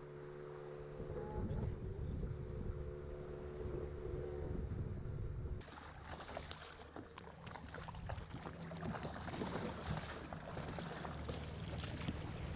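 Motorised wooden longboat under way: a steady engine hum with water rushing past the hull. About halfway through the sound changes abruptly to a closer, noisier wash of water churning along the hull over a low motor rumble, with wind on the microphone.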